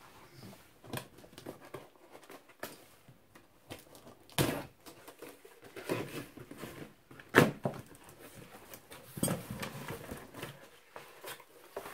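Unpacking a cardboard box: scissors cutting the packing tape, then the cardboard flaps being handled and pulled open, in a string of scattered scrapes, rustles and knocks. The sharpest knocks come about four and a half and seven and a half seconds in.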